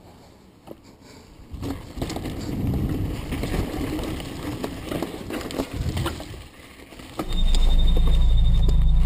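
Mountain bike rattling and clattering over a rough dirt trail, with tyres crunching on the ground and sharp knocks from the frame and handlebars. About seven seconds in, background music comes in loud over it.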